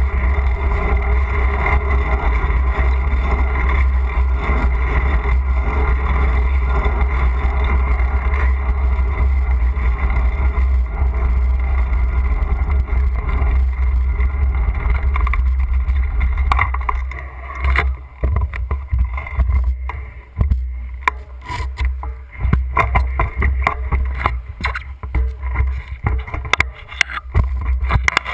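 Wind buffeting and road rumble on a bike-mounted GoPro while cycling, a steady low rumble. About two-thirds of the way through it drops away, leaving scattered knocks and rattles from the bike and mount.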